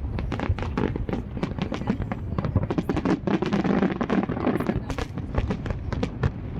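Aerial fireworks display: many rapid, irregular bangs and crackles of shells bursting, several a second, over a steady low rumble.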